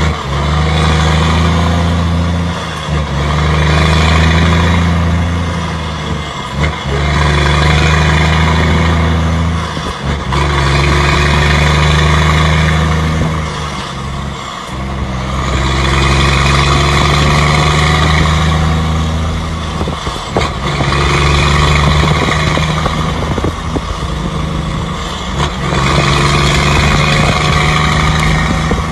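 Scania truck engine running loud and deep under way, in stretches of a few seconds, each broken by a brief dip, about every four or five seconds.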